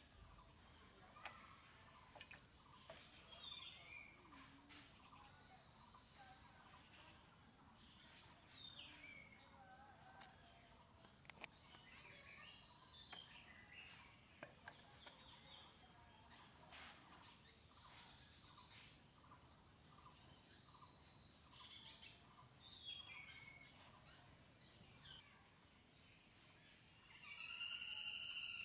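Faint steady high-pitched drone of crickets, with scattered short bird chirps and a few faint clicks, and a louder pitched call near the end.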